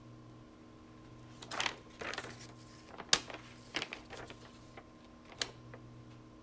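Plastic clicks and rustles as a gloved hand picks items out of a plastic Foley catheter kit tray, an irregular scatter of light taps with one sharp click about three seconds in.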